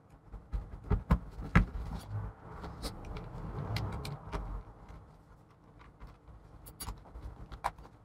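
Hands handling and pressing together the plastic housing of an aftermarket MacBook MagSafe charger brick during reassembly: a scatter of sharp plastic clicks and knocks, the loudest about a second and a half in, over low handling rumble.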